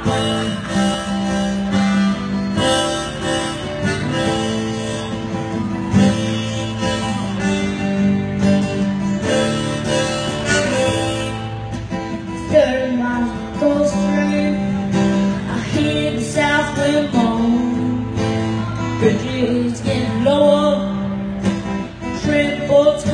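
Acoustic guitar and harmonica playing a song's instrumental intro.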